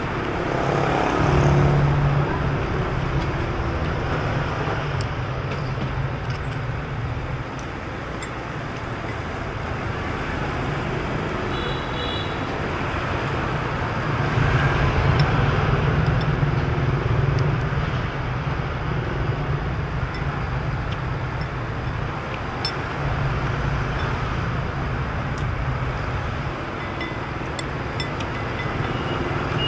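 Street traffic of motorbikes and cars passing, a steady rumble that swells as vehicles go by, loudest about two seconds in and again around fifteen to eighteen seconds. A brief high beep sounds near the middle.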